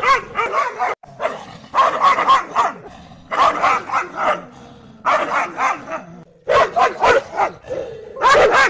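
Dogs barking at each other through a metal gate, in rapid volleys of barks: about six bouts with short pauses between.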